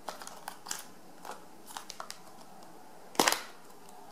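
Hard plastic clicks and light knocks as a GoPro Hero 3's clear waterproof housing is opened and the camera handled out of it, with one louder snap a little after three seconds in.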